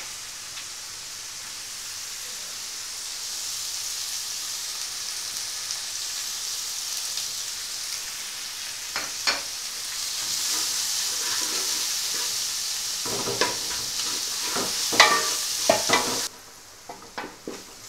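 Crushed shallots, ginger and garlic sizzling steadily in hot coconut oil in an aluminium pan as they sauté. In the second half a wooden spatula stirs them, knocking and scraping against the pan, and the sizzle drops away suddenly near the end.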